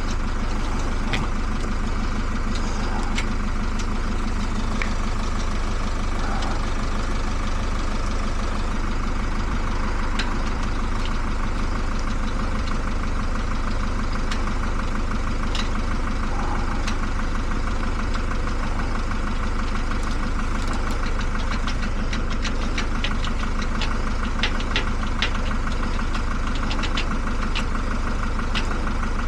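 A vehicle engine idling steadily, with scattered small clicks and ticks from lock-picking tools working a lever lock, coming more often in the last few seconds.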